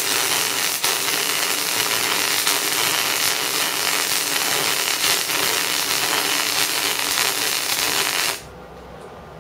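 MIG welding arc crackling steadily as solid-core wire is fed onto steel plate with the CO2 shielding gas turned off and run out of the hose. The crackle cuts off suddenly about eight seconds in when the trigger is released.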